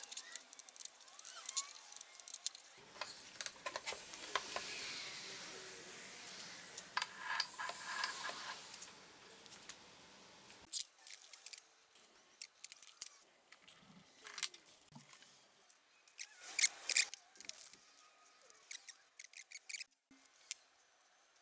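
Workshop handling noises: scattered clicks and taps of tools and metal engine parts being set down and worked. Near the end comes the crinkle of plastic bags as new pistons are unwrapped.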